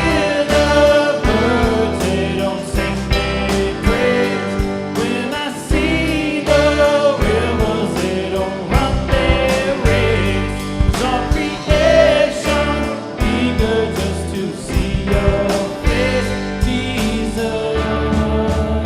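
Contemporary worship band playing a gospel song: singing over drums, bass and guitar.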